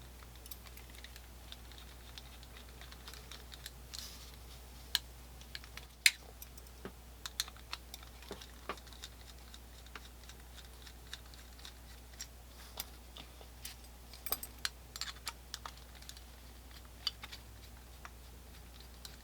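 Scattered light metallic clicks and taps of a screwdriver and small steel screws as the three trigger-guard screws are backed out of a Colt percussion revolver, with one sharper click about six seconds in.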